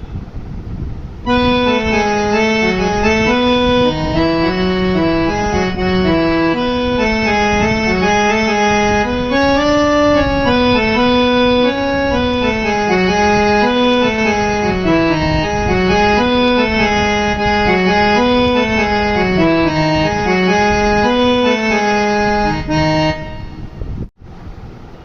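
Casio CT-X9000IN electronic keyboard being played: a slow melody over held chords, every note sustained. It starts about a second in and stops shortly before the end.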